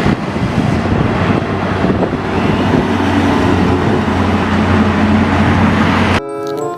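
Truck engine running with a steady, loud rumble, as a sound effect for a toy cement mixer truck; it starts abruptly and cuts off suddenly about six seconds in.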